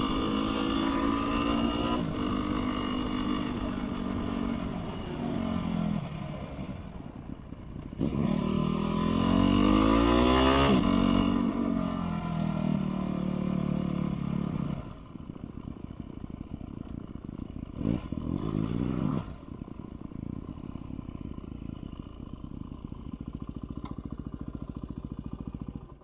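Yamaha WR250R's single-cylinder engine while riding: steady running, then climbing and falling in pitch as the bike speeds up and slows about eight to eleven seconds in. From about fifteen seconds it idles with an even pulse, is blipped briefly near eighteen seconds, and cuts off at the end.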